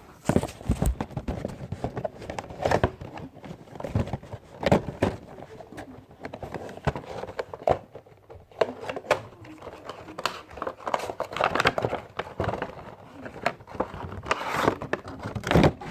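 A cardboard Funko Pop box and its clear plastic insert being handled and opened by hand, with irregular crinkling and scattered knocks and clicks.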